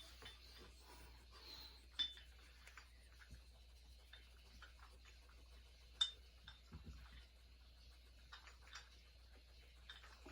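Faint metallic clinks in a quiet room, two sharper ones about two and six seconds in, each with a brief ring.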